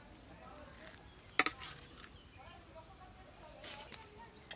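Steel serving spoon clinking sharply once against a stainless-steel bowl about a second and a half in, with a softer clink just after and another right at the end.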